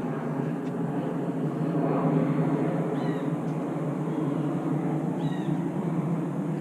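A bird gives short, mewing calls twice, about two seconds apart, over a steady low background rumble.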